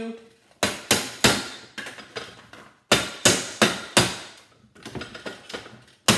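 Hammer blows on a vacuum cleaner motor clamped in a bench vise, breaking the motor's arms to free its armature. Sharp strikes in quick runs: three about a second in, four in the middle, weaker taps between, and one more near the end.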